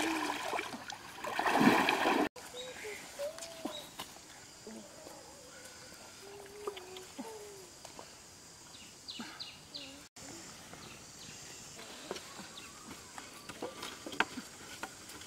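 River water splashing for about two seconds. After an abrupt cut, a quiet outdoor background with a few faint short sounds.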